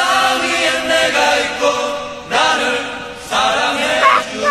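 A man singing a drawn-out tune in about three long, held phrases, a mock striptease song as he starts to undress.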